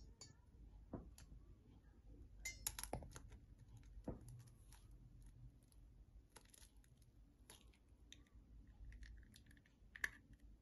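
A hen's eggshell being picked at and cracked by fingers: faint scattered clicks and crackles. A sharper crack about ten seconds in is the shell splitting open.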